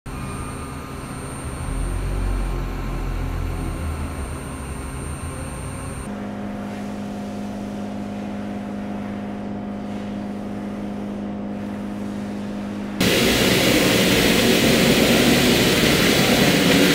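Machinery of a robotic sand-milling cell running: a steady mechanical hum with a low rumble, which changes abruptly about six seconds in to a steadier pitched hum, then about thirteen seconds in to a much louder, even rushing noise.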